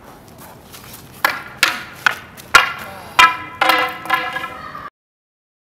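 Quarterstaffs clacking together in a staged fight: about six sharp knocks over two and a half seconds, the last ones ringing on, before the sound cuts off suddenly.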